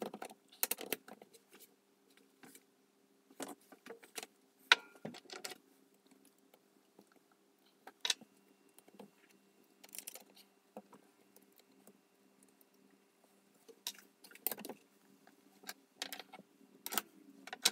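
Scattered metal clicks and clinks as a quick-change tool holder is fitted to a lathe's tool post and a spanner is set on the tool post nut, over a faint steady hum.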